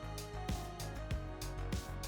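Background music with a steady beat.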